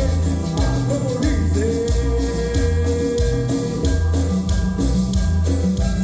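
A band playing upbeat Latin music, with a steady kick drum and bass pulse and cymbals. One long note is held in the middle.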